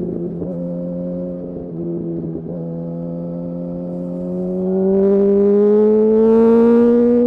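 2008 Yamaha R1's inline-four engine running at steady revs, then pulling harder from about two-thirds of the way in: it gets louder as the revs climb slowly.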